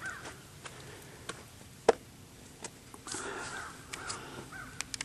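Quiet outdoor background with a few sharp clicks from the camera being handled, the loudest a little before two seconds in, and a faint cawing bird call a bit after three seconds.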